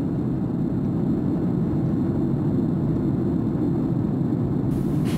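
Airplane cabin noise in flight: a steady low rumble of engines and airflow. A brighter hiss comes in near the end.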